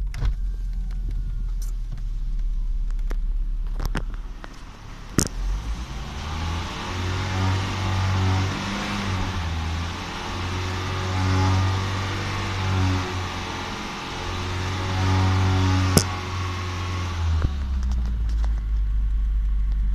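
Car engine idling, then held steadily at raised revs (about 3000 rpm) for roughly twelve seconds before dropping back to idle near the end. At the raised revs a broad rushing noise sits over the engine note: the weird noise the owner hears at 3000 rpm. A few sharp clicks stand out.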